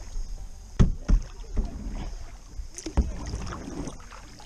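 Kayak paddling: the paddle blades splashing in and out of the river water, with a few sharp knocks about a second in and again near three seconds.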